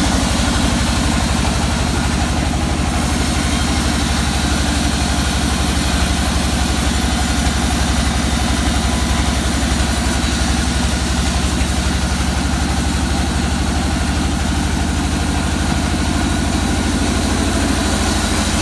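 Band sawmill's drive engine running steadily at idle, with no log being cut.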